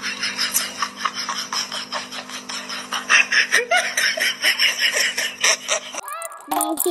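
People laughing in rapid bursts over a steady hum. About six seconds in it cuts off to a short rising sweep, and music begins.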